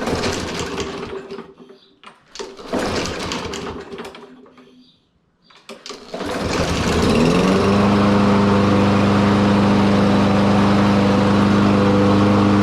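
Troy-Bilt TB110 lawn mower engine being pull-started. Two pulls of the recoil starter crank it without it catching. About six seconds in it fires, its pitch rises for a second or so, and it settles into steady running, started on a new spark plug, air filter and fresh gas.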